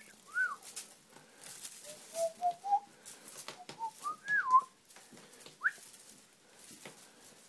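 A person whistling short, pure rising and falling notes to call a kitten: single chirps, a stepped run of rising notes, and a wavy up-and-down whistle about four seconds in, the loudest.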